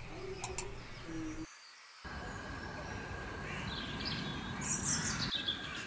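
Wild birds calling: two short, low, steady calls in the first second and a half, then, after a brief silent gap, a run of high chirps that fall in pitch, over a faint steady hiss.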